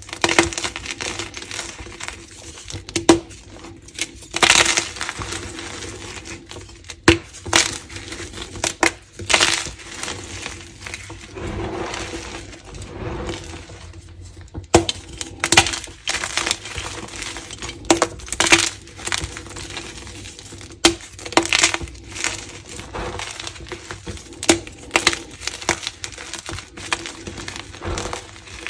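Blocks of pigment-coated gym chalk being snapped and crumbled by hand over a pile of broken chalk, giving irregular sharp snaps and dry crunches with powdery crumbling between them.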